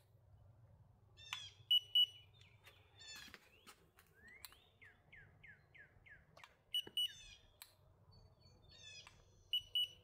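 Handheld infrared thermometer beeping in quick pairs of short, high beeps, three times, as temperature readings of the EV charger's plug and cable are taken. Birds chirp faintly between the beeps, including a run of quick slurred notes in the middle.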